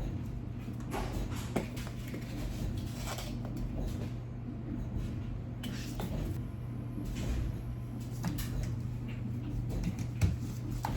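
Household handling sounds: scattered soft knocks, clicks and rustles, like cupboards or doors and objects being moved, over a steady low hum.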